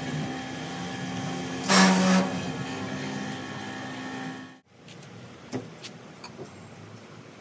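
Pressure washer motor running with a steady hum and a short loud burst about two seconds in. Past halfway the sound cuts off abruptly, leaving a quieter background with a few light clicks.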